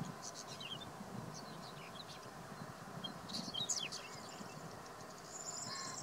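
Male whinchat singing: short phrases of scratchy, high whistled notes, the busiest burst about three to four seconds in.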